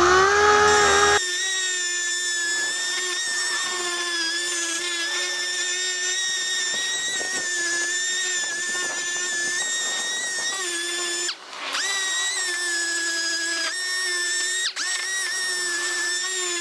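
Air-powered orbital sander with a blue pad running at a steady high whine while it sands down cured urethane filler on a car bumper repair. A heavier rumble drops out about a second in. The sander stops for a moment about two-thirds of the way through and spins back up, then dips briefly once more a few seconds later.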